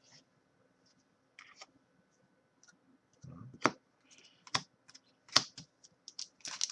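Trading cards being handled and set down on a table: a series of sharp clicks and taps, sparse at first, then several louder ones in the second half.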